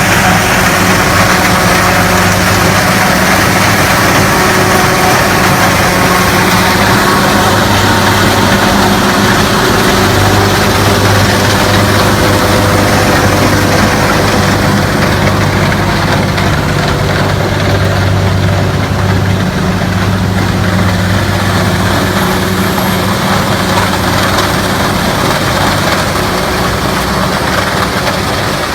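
Engine of a corn-harvesting machine running steadily at a constant speed, a loud, even hum over mechanical clatter.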